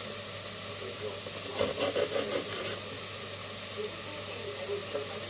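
Steady sizzling of chicken, garlic and sherry frying in a pan, with a short patch of louder knocking about a second and a half in.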